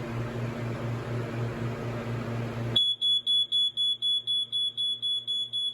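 First Alert smoke alarm's piezo horn sounding on test: a high-pitched tone beeping rapidly, about four beeps a second, that starts suddenly nearly three seconds in. Before it, a pulsing low hum and hiss.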